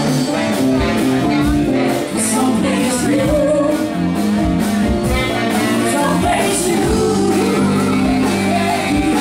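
Live band playing a funky song with keyboards, electric guitars and a steady drum beat, with singing over it.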